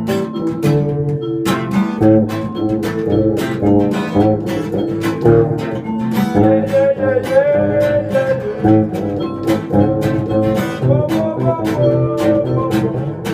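Instrumental music: acoustic guitar picking steadily, with a held, wavering melody line over it in the middle.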